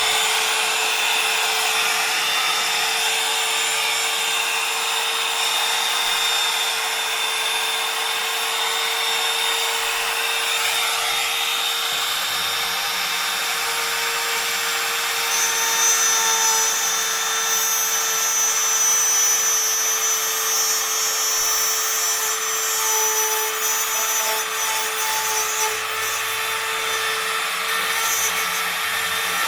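Makita 3711 trim router running steadily at full speed with a constant high whine, its bit cutting into wood.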